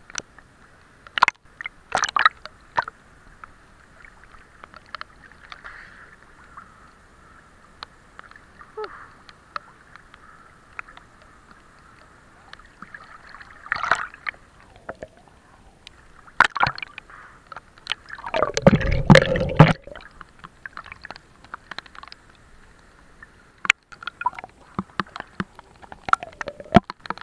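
Creek water sloshing and gurgling against a camera held right at the water's surface, with scattered clicks and knocks. About two-thirds of the way through comes one loud, deep, muffled rush lasting about a second.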